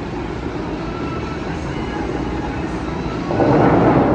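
Steady outdoor city traffic noise from the Las Vegas Strip, with a louder rushing swell starting about three seconds in.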